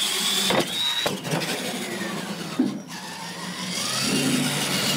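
Radio-controlled monster truck running flat out down a straight drag lane: a whine of electric motor and gears that rises in pitch in the first second, over a steady rush of tyres and drivetrain.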